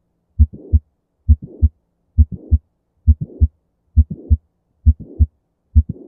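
Recorded heart sounds of mitral valve prolapse: seven regular beats, about one every 0.9 seconds. Each beat is a low thump followed by a short hissing systolic murmur that ends in a second thump.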